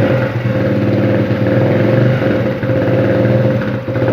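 Motorcycle engine running steadily at raised revs with the throttle held open, its loudness rising and dipping slightly.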